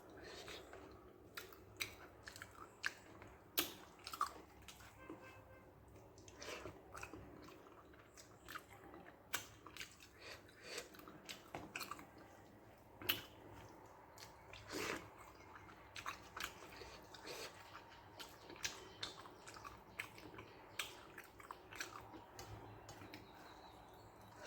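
A person chewing and eating rice with a spicy brinjal and okra curry, with irregular mouth smacks and clicks all the way through.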